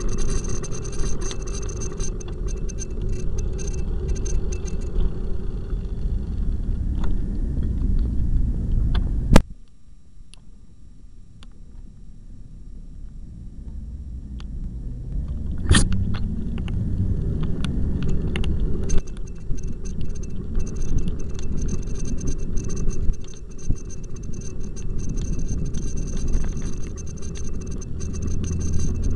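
Wind and road rumble on a bicycle-mounted camera riding through traffic, with light rattling from the mount. About nine seconds in a sharp knock cuts the noise down low for several seconds, and a second knock brings it back.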